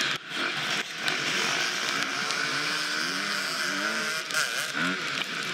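Dirt bike engine revving up and down over and over, its pitch rising and falling in quick swells, under a steady rush of noise, with a couple of sharp knocks near the start.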